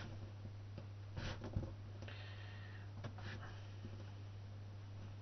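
Soft rustling and light scraping of a stack of paper sheets being rolled around a wooden dowel, in a few short bouts about one, two and three seconds in. A steady low hum runs underneath.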